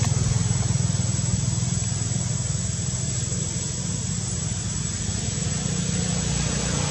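Steady low drone of an engine running, with a thin, steady high whine above it.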